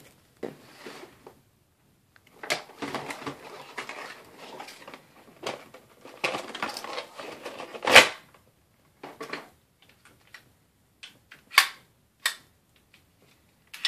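Crinkling and rustling of a clear plastic blister pack as an airsoft pistol is worked out of it, with a loud sharp snap about eight seconds in. After that come several short separate clicks as the plastic pistol is handled.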